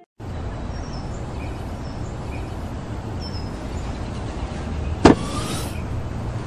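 Steady outdoor background noise with a low rumble, broken about five seconds in by one sharp clunk as the Volkswagen Gran Lavida's tailgate pops open.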